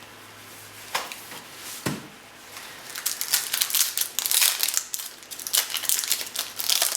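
Foil trading-card pack being handled and torn open, crinkling and crackling, with a couple of sharp crackles about one and two seconds in and steady crinkling from about three seconds in.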